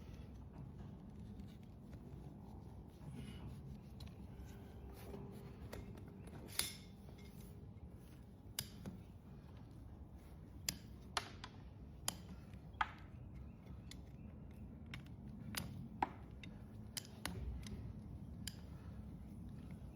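Hoof nippers cutting overgrown horse hoof wall: a dozen or so sharp, irregularly spaced snips and clicks over a low steady background.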